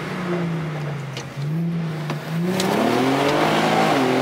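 Car engine under way: its note eases down, dips suddenly about a second in, then rises steadily as the car accelerates and levels off near the end.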